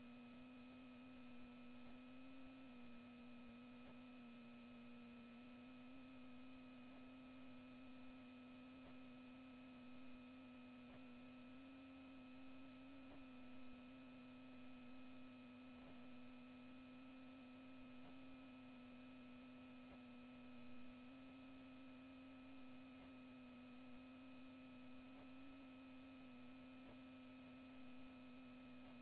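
Near silence apart from a faint, steady electrical hum: one low tone with fainter higher overtones over light hiss, unchanging throughout.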